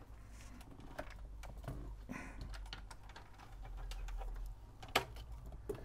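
Light, scattered clicks and taps of hands handling the record player's metal chassis and mechanism, with one sharper click about five seconds in.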